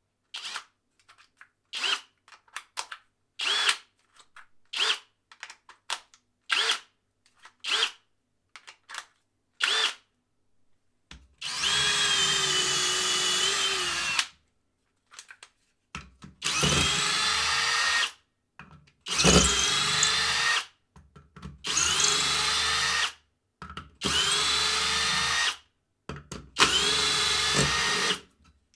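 Parkside Performance 12V cordless drill driver run in bursts. It gives a string of brief blips at first, then six longer runs of one to three seconds each, the motor's whine climbing as it spins up at the start of each run.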